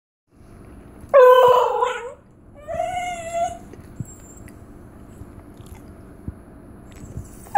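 Basenji–Whippet mix dog yodelling twice: a loud wavering call about a second in, then a shorter, quieter one. This is the Basenji's yodel in place of a bark, a demand for a treat.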